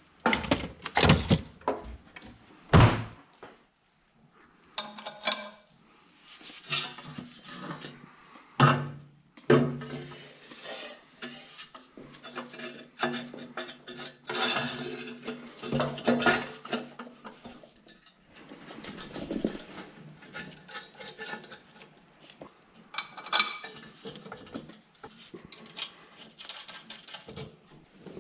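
Irregular metallic clanks, knocks and rattles of heavy metal vehicle parts and hand tools being handled and fitted, with several sharp knocks in the first three seconds and another near the middle.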